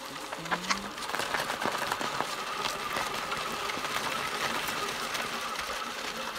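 Electric drive motor of a wheelchair trike attachment whining steadily under way, the whine coming in about a second in. Under it, the tyre crackles and crunches over gravel and fallen leaves.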